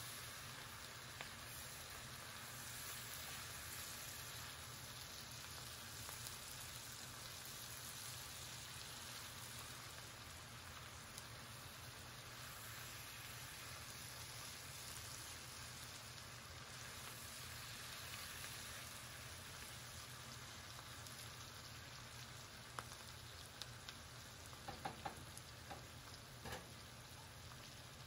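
Faint, steady sizzle of vegetables frying in an enamelled cast-iron skillet while they are stirred with a silicone spatula, with a few light knocks of the spatula near the end.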